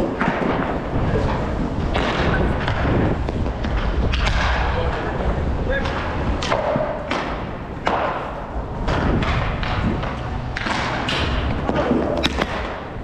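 Roller hockey play: a steady rolling rumble with repeated sharp clacks and thumps of sticks, puck and boards, one every second or so.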